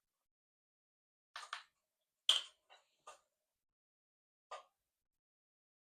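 A handful of short, light clicks and knocks from containers and an oil bottle being handled while oil is measured out, the loudest about two seconds in and the last near the end.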